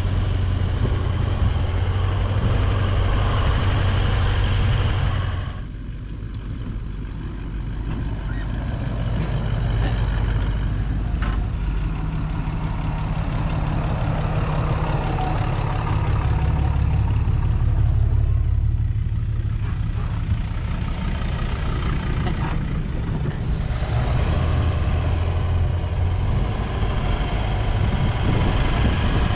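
Toyota LandCruiser 200 Series V8 driving along a bumpy bush track: steady engine drone and road rumble, easing off about six seconds in and building again a few seconds later.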